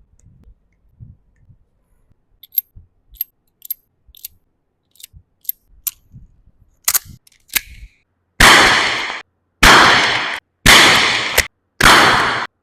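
Dan Wesson 2.5-inch CO2 BB revolver: a string of light metallic clicks and two sharper clicks as the gun is handled, then four loud shots about a second apart, each fading away over most of a second.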